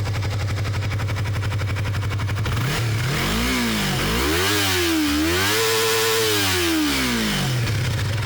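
Yamaha YZF-R25's 250cc liquid-cooled parallel-twin engine idling steadily, then revved up three times in quick succession, the last rev held longest, before settling back to idle near the end.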